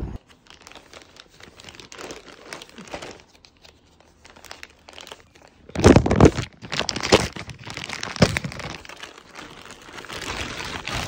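Plastic mailer bag being opened and handled, crinkling and rustling noisily in irregular bursts, loudest around six seconds in.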